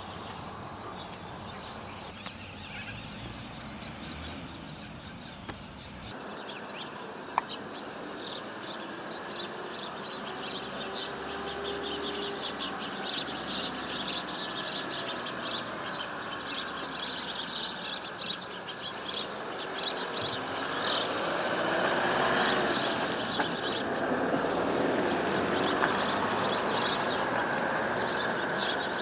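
Outdoor ambience of many small birds chirping busily. About two-thirds of the way through, a broad background noise swells louder for several seconds and then eases.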